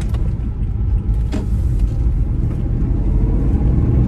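Honda S660's mid-mounted turbocharged three-cylinder engine droning steadily behind the seats, heard from inside the cabin while driving, with road rumble underneath. Its pitch rises near the end as the car picks up speed.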